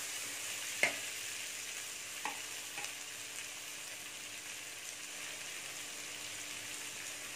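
Sliced onions, tomatoes and green chillies sizzling steadily in oil in a nonstick kadai, with a sharp tap about a second in and a couple of fainter clicks a little later.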